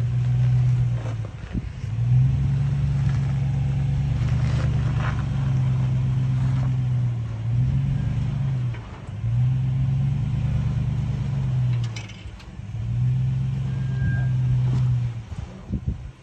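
Toyota 4Runner's 4.7-litre V8 revving in about five bursts of throttle, each rising and then falling back, under load as the truck crawls over rock. A few short knocks from the rocks are heard in between.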